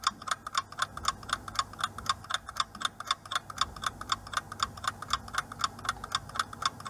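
Clock-ticking sound effect for a countdown timer: rapid, even ticks, several a second, keeping steady time as the seconds run down.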